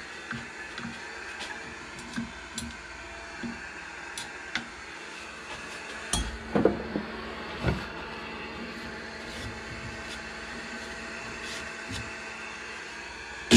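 Steady workshop hum with scattered light knocks and a few heavier clunks about halfway through, from sanding tools being handled at a stopped wood lathe.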